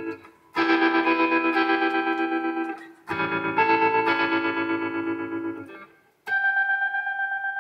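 An electronically processed instrument plays held chords with a fast, pulsing tremolo. Two chords each ring for about two seconds and cut off sharply, then a higher, thinner chord starts near the end.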